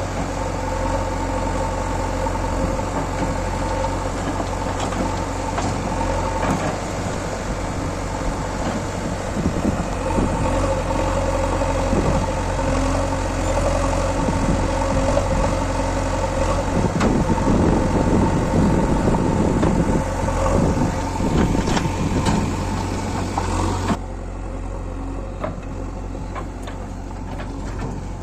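Diesel engine of a JCB 3DX backhoe loader running steadily. It grows louder a little past halfway, then drops and turns duller abruptly near the end.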